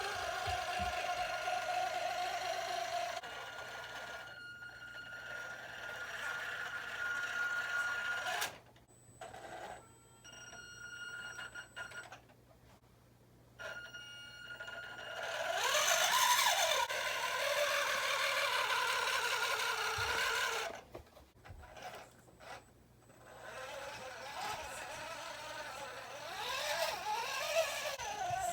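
Whine of the small electric motors and gearboxes of radio-controlled construction models, stopping and starting in stretches, its pitch rising and falling as they speed up and slow down.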